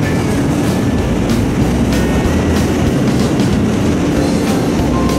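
New York City Subway car running between stations, heard from inside the car: a steady low running noise from the motors and wheels, with scattered clicks of the wheels over the rail joints.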